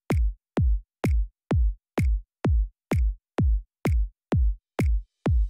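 Electronic intro music: a drum-machine kick drum beating alone, about two hits a second, each hit dropping quickly in pitch.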